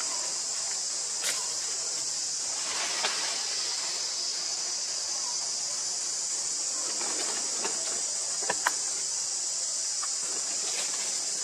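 Steady high-pitched drone of insects buzzing, with a few brief clicks and light rustles over it, the sharpest click about eight and a half seconds in.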